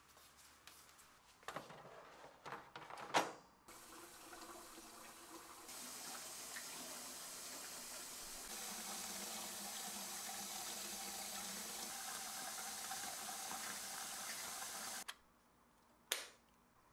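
A few light knocks and clatters, then a kitchen faucet running steadily for about eleven seconds, growing a little stronger twice before it is shut off suddenly. Near the end a single sharp click as a single basket is pressed into a Breville 870 espresso machine's stainless portafilter.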